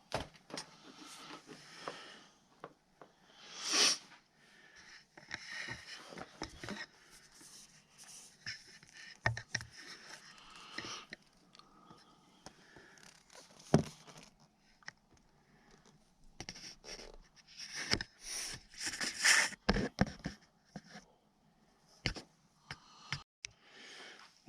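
Irregular clicks, knocks and scraping as hands and tools work at the motorcycle's plastic dash and fairing parts, with louder rustling scrapes about four seconds in and again in the last third.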